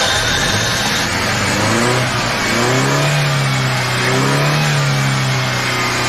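Car engine running just after catching from cranking, revved up and back down twice with the gas pedal.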